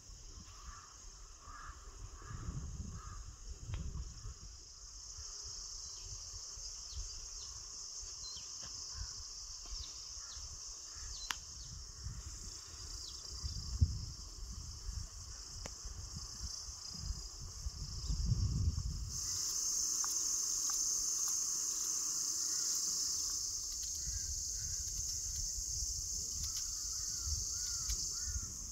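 Steady high-pitched insect chirring that suddenly grows louder about two-thirds of the way through. A few short, repeated bird-like chirps come near the start and again near the end, with occasional low rumbles underneath.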